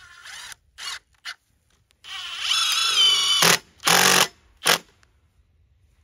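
Cordless drill with its bit in a wooden block, running in several short spurts, then one longer run of about a second and a half with a rising motor whine, then a few more short spurts.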